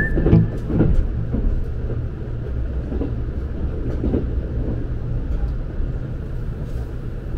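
Kintetsu Aoniyoshi limited express running on the rails, heard from inside the passenger car as a steady low rumble of wheels and running gear.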